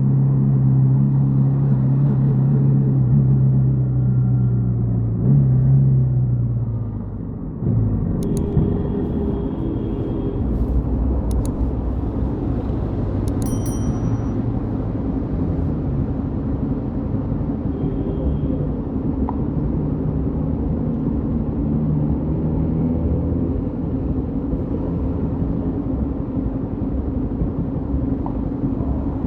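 Yamaha XTZ 150 Crosser S single-cylinder four-stroke engine running under way, holding a steady note, rising briefly about five seconds in, then dropping in revs about seven seconds in. It then runs at lower, varying revs.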